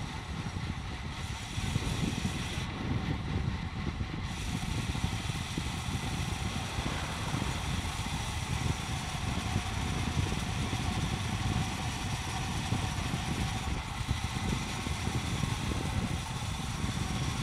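Wind rushing over the microphone on a fast road-bike descent, with road noise: a steady, gusty rush, heaviest in the low end, that never lets up.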